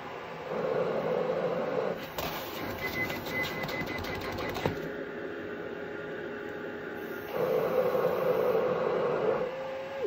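Cough assist (mechanical insufflation-exsufflation) machine pushing and pulling air through tracheostomy tubing to clear mucus. Its steady blower hum swells twice, about half a second in and again about seven seconds in, with a stretch of quick rattling between.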